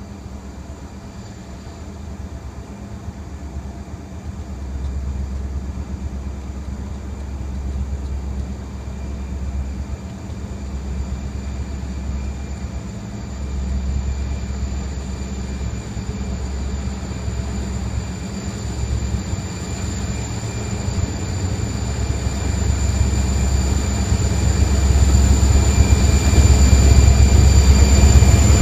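Wheeling & Lake Erie diesel freight locomotives approaching, their engines rumbling deep and getting steadily louder, with a steady high whine that strengthens in the last few seconds as the lead units draw near.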